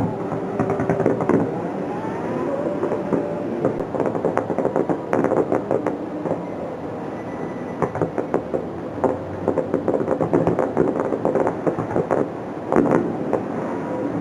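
Fireworks bursting and crackling in an irregular rapid series of bangs and pops over a continuous rumble.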